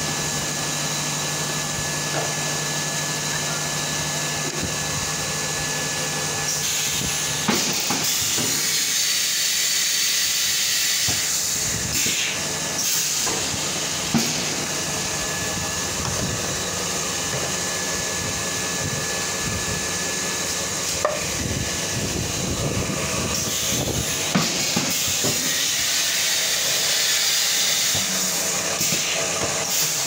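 A two-cavity semi-automatic PET bottle blow-moulding machine running, with a steady hiss of air and several sharp clacks from the mould station. A low hum stops about a quarter of the way through.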